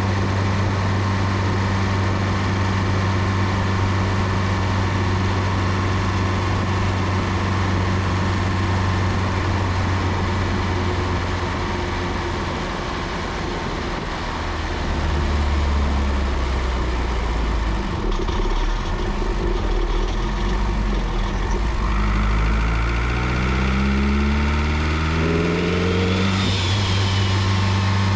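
Turbocharged Honda B16 four-cylinder engine with a GTX3582 turbo, running steadily and then at lower revs. About three quarters in, the revs climb in several quick rises with a high turbo whine. A whistle rises and falls before the engine settles back to steady running.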